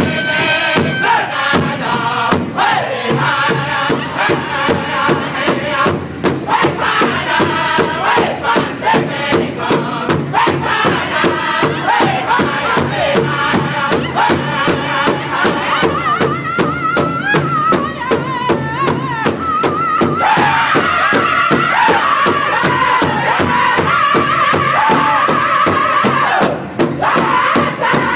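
Powwow drum group singing high, strained vocables in unison over a steady, even beat struck together on one large drum. About twenty seconds in, the voices move up higher.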